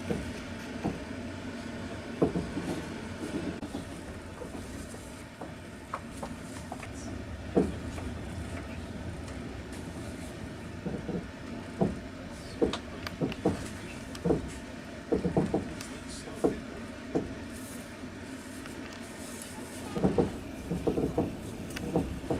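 Passenger train wheels clacking over rail joints, with a steady rumble of the carriage running underneath. The knocks come in irregular groups of two to four, most of them in the second half.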